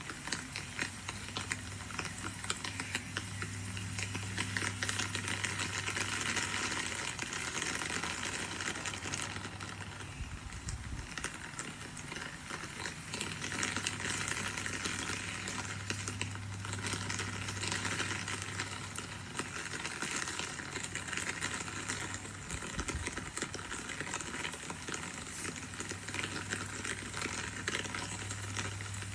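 Steady rain falling, an even hiss full of fine crackle, with a low steady hum underneath.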